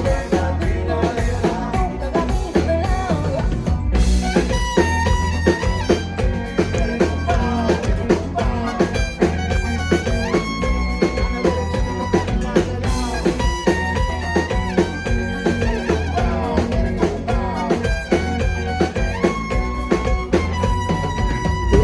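Live Latin pop band playing an upbeat song: drum kit keeping a steady beat under sustained melody notes and some singing.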